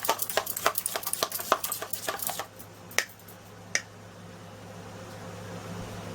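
A whisk beating pancake batter in a bowl, a fast run of clicking strokes that stops about two and a half seconds in. Two single taps follow, then only a low steady hum.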